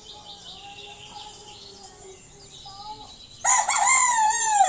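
A rooster crows once, loud and drawn out, starting suddenly near the end and falling in pitch as it trails off, over the chirping of small birds.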